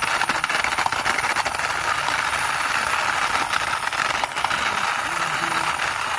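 Plastic toy police motorcycle pushed by hand along a stone ledge, its wheels and internal gears whirring with a steady fast clicking rattle.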